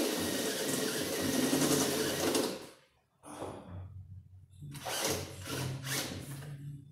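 Power drill turning a 4–12 mm step drill bit through the sheet-metal fender, cutting a mounting hole: one run of nearly three seconds, a short stop, then a second run near the end.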